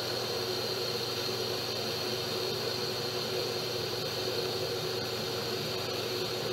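Metal lathe running, its chuck spinning a metal bar: a steady hum with a constant high whine.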